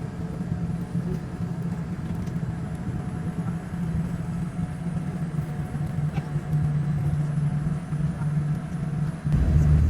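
Boeing 787-10 airliner cabin with the engines running, heard from inside: a steady low rumble. It becomes louder from about nine seconds in.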